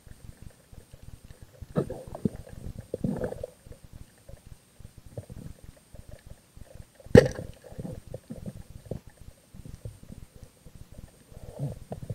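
Underwater sound of a steady scatter of small clicks and low rumbles, with one sharp, loud snap about seven seconds in as a band-powered speargun fires.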